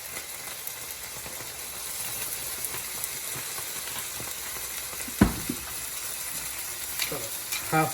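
Sauce of chili sauce, soy sauce and vinegar sizzling steadily in a hot pan, with one sharp knock about five seconds in.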